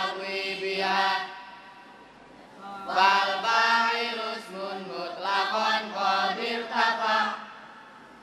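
A group of boys chanting Arabic grammar verse (nadzom) in unison. One line ends about a second in, and after a short pause the next line is chanted from about three seconds in, dying away near the end.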